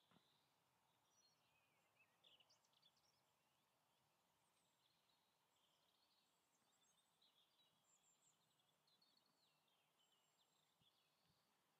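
Near silence with faint birdsong: scattered small chirps and short calls.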